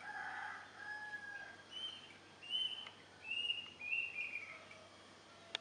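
Birds calling over a faint steady hiss. A lower, drawn-out call fills the first second and a half, then a run of about five short, higher whistled notes follows. The sound ends abruptly with a click.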